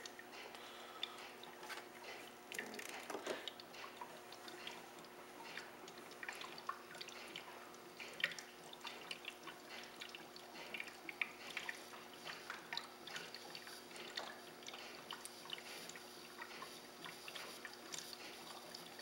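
Faint, irregular bubbling and dripping of liquid from an HHO (oxyhydrogen) electrolysis cell making gas, over a low steady hum.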